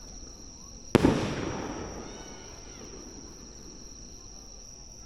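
A single firework shell bursting about a second in: one sharp boom that echoes and dies away over a second or so. A faint steady high-pitched tone runs underneath.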